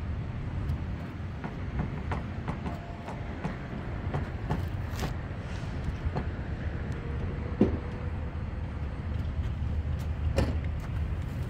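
Light metallic knocks and clicks from the underside of a Cadillac as its exhaust pipe and the parts around it are handled from below, with two sharper knocks late on, over a steady low rumble.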